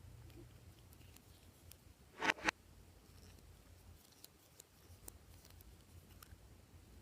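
Glossy slime being worked by hand, giving small sticky clicks and a pair of louder pops close together about two seconds in.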